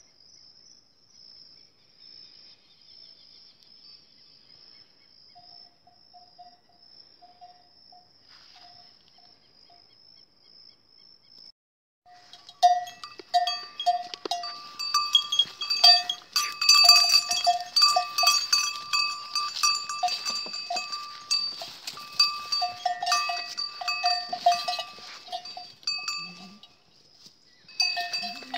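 A steady high insect drone, then about twelve seconds in, goat bells start clanking in quick, uneven rings as the herd moves, much louder than the drone and carrying on until near the end.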